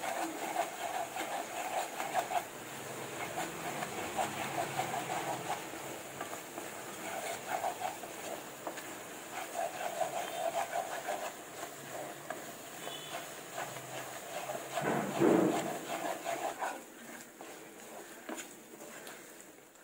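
Wooden spatula stirring and scraping a thick, sticky jaggery and coconut mixture around a nonstick frying pan, in many quick strokes, louder for a moment about fifteen seconds in. The jaggery syrup is being cooked down toward a rolling consistency.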